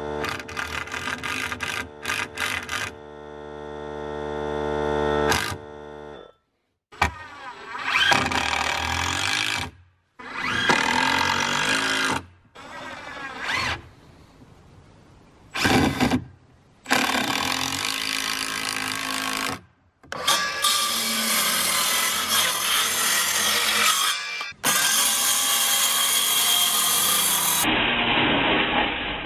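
A string of short cut-together bursts of cordless power tools working wood. First a drill drives screws into the framing, its motor whining and growing louder over a few seconds. Later come longer, noisier runs of a cordless circular saw cutting through boards.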